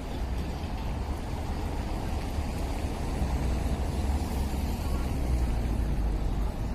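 Steady low rumble of city street noise with road traffic.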